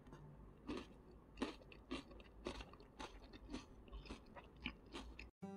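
Faint crunching of a crisp iceberg lettuce and bell pepper salad being chewed, in a steady run of about two crunches a second.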